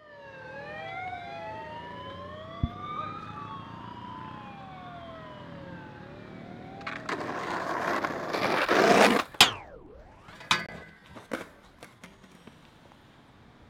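A siren wailing, several rising and falling tones overlapping, for about the first seven seconds. Then a skateboard grinds down a metal handrail with a harsh scrape that builds in loudness, ending in a sharp crack and a few clattering knocks of the board.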